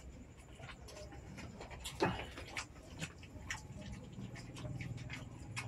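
Close-up eating sounds: oysters being chewed and slurped, with many small clicks of oyster shells, a louder knock about two seconds in, and a low steady hum from about four seconds on.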